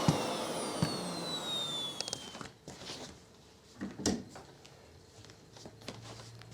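Miele S5 Callisto canister vacuum's motor winding down after being switched off: a falling whine that fades out over about the first two and a half seconds. Then a few light clicks and knocks.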